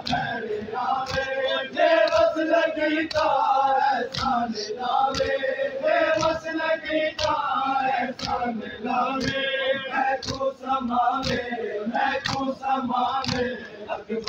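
Men's voices chanting a Muharram noha lament together, with sharp rhythmic slaps of matam chest-beating keeping time at a bit more than one a second.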